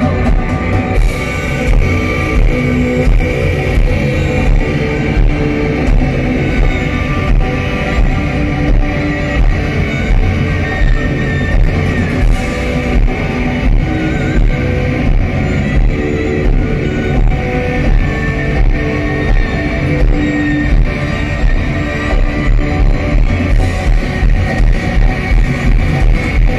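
Loud live post-rock band music: strummed guitar-like strings over bass and a steady pulsing beat, with sustained pitched lines running through.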